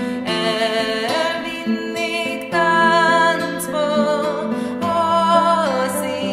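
Background music: a Hungarian folk song with acoustic guitar accompaniment and a sustained melody line.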